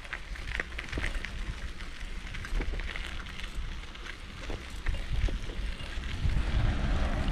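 Wind buffeting the microphone as a low rumble, with scattered light clicks and rattles, while riding along.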